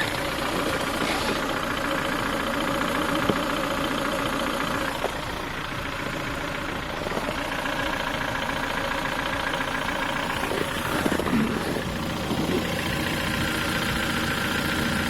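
Ford Focus 3 1.6 125 hp four-cylinder petrol engine idling warm with a steady rhythmic knock, which the owner attributes to a worn piston pin. The knock is stronger when the engine is cold.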